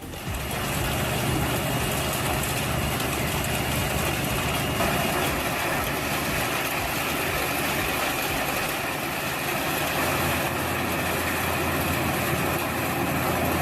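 A large industrial wood chipper's engine running steadily, with a dense rushing noise over its low hum.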